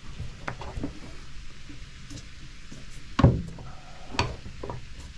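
A few sharp knocks and clunks over a steady hiss, the loudest about three seconds in and another about a second later: hatches and fittings on a boat being handled.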